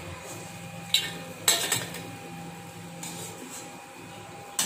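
A metal slotted spoon clinks against an aluminium kadai and a steel plate as fried bajjis are lifted out and set down. There is one clink about a second in, a short clatter of several knocks at about one and a half seconds, and another clink near the end.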